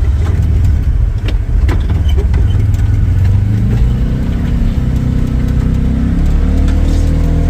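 Ranger side-by-side's engine running as it drives, its pitch climbing about halfway through as it speeds up, with scattered knocks and rattles.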